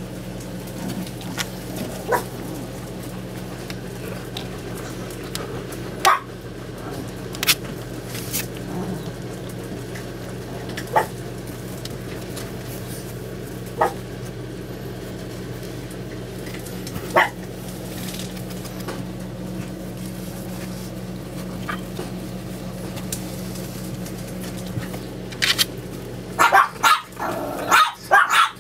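Chihuahua puppies yipping and barking in short, scattered bursts a few seconds apart while they play, with a quick run of barks near the end. A steady low hum runs underneath.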